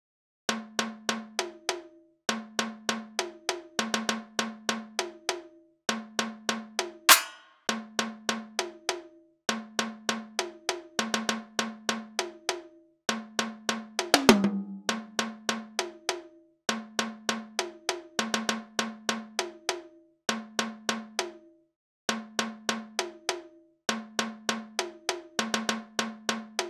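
Electronic dub/industrial music: a repeating riff of short, ringing metallic percussion hits, cowbell-like, in quick runs of a second and a half separated by brief pauses. A sharp, noisy crash-like hit stands out about seven seconds in, and another about fourteen seconds in.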